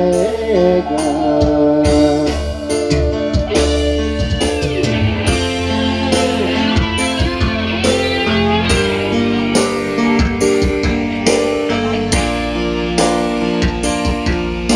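Live Sundanese pop band playing an instrumental passage: electric guitar lead over keyboard and kendang hand drums, with a steady beat. The guitar bends notes about four seconds in.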